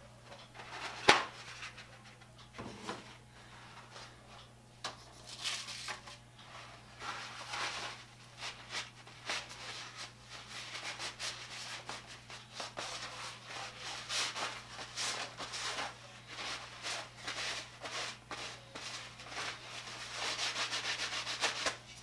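Paper towel rubbing and scrunching as paint is wiped off a paintbrush and stir sticks, in many short irregular strokes. There is one sharp tap about a second in, and the strokes come in a faster run near the end.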